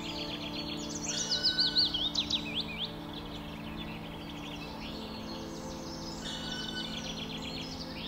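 Songbirds singing in the forest. About a second in, one loud song of quick notes falls in pitch and ends in a few sweeping notes, lasting about two seconds; fainter song carries on around it over a low steady hum.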